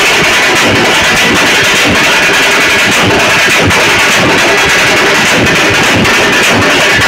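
Several double-headed drums beaten rapidly with thin sticks, a loud, dense and continuous rolling rhythm with no pause.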